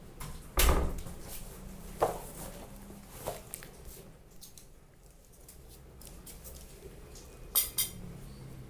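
Kitchenware being handled: a heavy knock just after the start, lighter clinks about two and three seconds in, and a quick double clink near the end.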